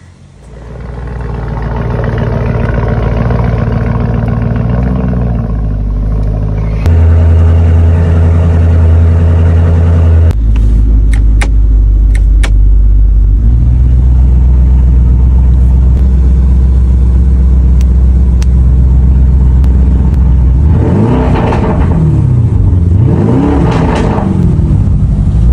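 Lamborghini Urus twin-turbo V8 through an Fi Exhaust valvetronic catback with quad tips, idling loudly and steadily. The exhaust tone jumps abruptly louder about seven seconds in and shifts again a few seconds later. Near the end come three quick revs that rise and fall.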